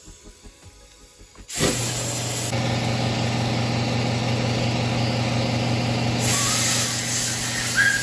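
Electric air compressor kicks on suddenly about a second and a half in and runs with a steady motor hum, refilling its tank after compressed air was used from a blow nozzle; a brighter hiss of air joins near the end.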